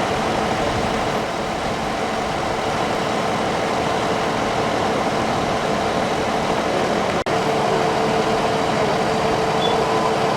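Steady vehicle engine noise with a held hum. The sound breaks off for a moment about seven seconds in.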